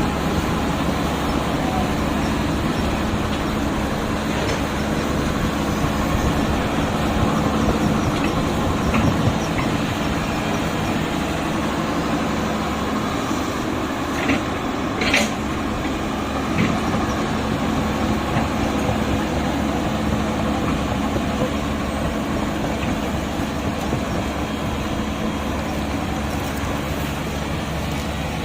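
Steady whirring of toy RC construction vehicles' electric motors and gearboxes, with a few short clicks about halfway through.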